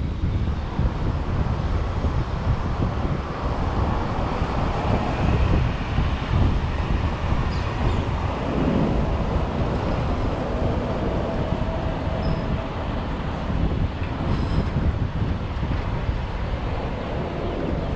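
Steady road and wind noise of a vehicle driving, heaviest in the low range, with no break.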